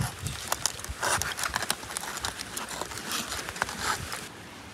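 Aluminium foil packet crinkling and crackling as a knife digs and scrapes into the cooked food inside, a quick run of sharp clicks and rustles that stops suddenly about four seconds in.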